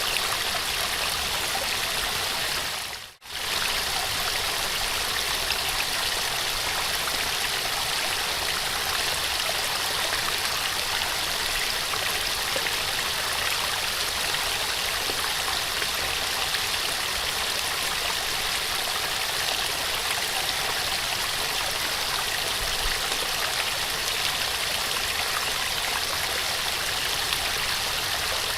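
Small waterfall: a steady rush of falling water, which dips briefly to near silence about three seconds in and comes straight back.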